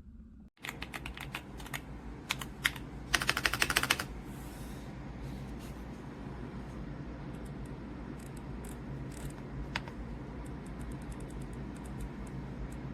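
Typing on a Royal Kludge S98 mechanical keyboard with tactile switches and PBT keycaps: a run of keystrokes, a fast loud flurry about three seconds in, then lighter, scattered keystrokes. A steady low hum runs underneath.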